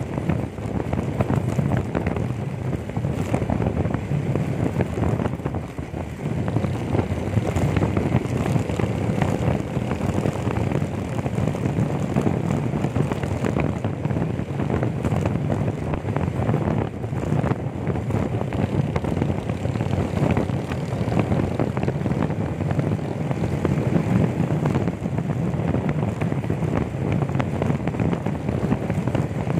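Steady wind rush buffeting the microphone over the running noise of a moving motorcycle.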